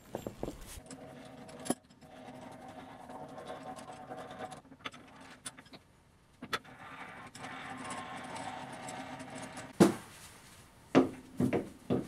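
Steady machine hum, then loud metal clanks near the end as a heavy steel bar is fitted into a lathe's three-jaw chuck, metal knocking on metal a few times in quick succession.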